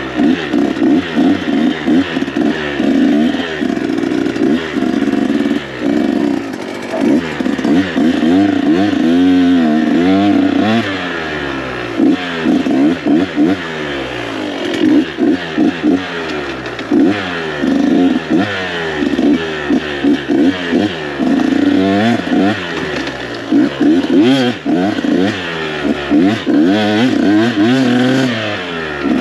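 KTM 125 SX two-stroke dirt bike engine being ridden hard, revving up and falling back again and again as the throttle is opened and closed, the pitch rising and dropping every second or two.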